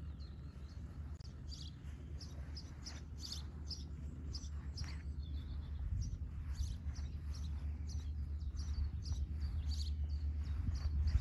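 Birds chirping and singing, many short high calls, over a low steady rumble that slowly grows louder.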